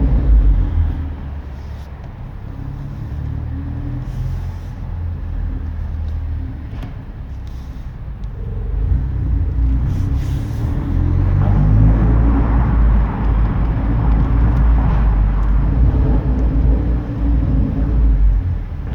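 Exhaust of a tuned 2016 Ford Focus ST, turbocharged 2.0-litre four-cylinder with a catless downpipe and 3-inch cat-back, echoing in a parking garage. A deep exhaust drone eases off, then builds again about ten seconds in, with short pops and crackles from the tune.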